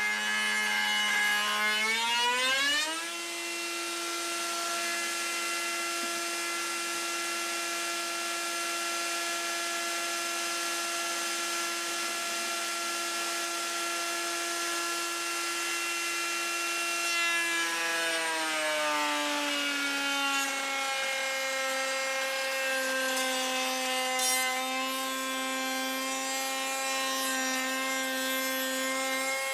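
Table-mounted router with a panel-raising bit, whining steadily at high speed. The pitch rises and the sound eases off about two and a half seconds in, as a cut on the wooden door panel ends. About eighteen seconds in it drops in pitch again under load, with the scrape of wood being cut, as the bit takes another pass along a panel edge.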